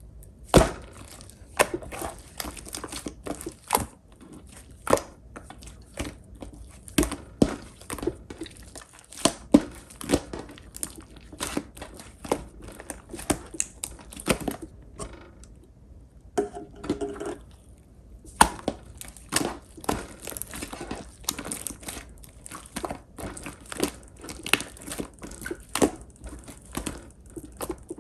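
Clear pink slime being pressed and stretched by hand, giving off irregular sharp pops and crackles, one to three a second, with a brief lull about halfway through.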